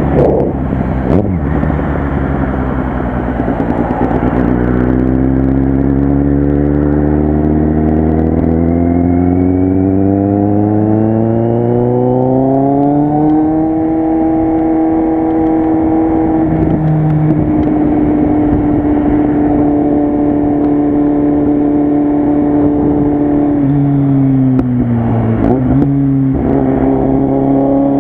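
Kawasaki Z800 motorcycle's inline-four engine and exhaust running under way. The revs climb slowly and steadily for about ten seconds, hold level at cruise, then drop off briefly near the end before settling again.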